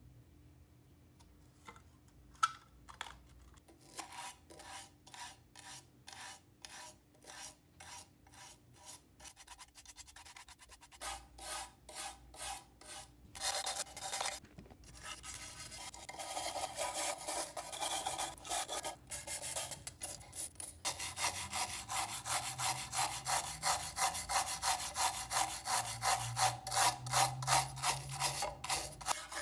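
Abrasive rubbing strokes by hand against the rusty metal of an old portable lamp, scraping off rust. A single sharp click comes shortly after the start; the strokes are slow and spaced at first, then become quicker and louder, turning into a steady fast back-and-forth in the last third.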